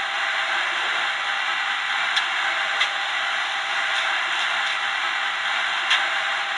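Sound decoder of an H0 model Renfe 269 electric locomotive playing its standing sound through the model's small loudspeaker: a steady hiss, with three short clicks about two seconds in, near three seconds and near six seconds.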